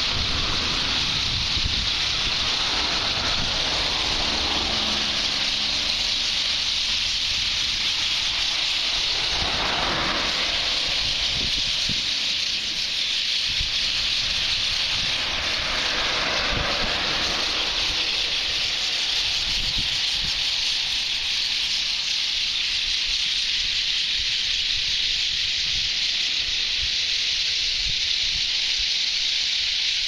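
The din of a huge flock of birds calling all at once, merged into a dense, steady hiss, with two swells about ten and sixteen seconds in.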